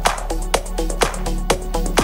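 Electronic dance music with a steady beat of about two beats a second over synth notes.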